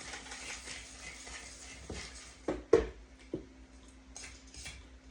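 Kitchen utensil scraping and clicking in a bowl while ingredients are mixed, with a few sharper knocks about halfway through, the second one loudest.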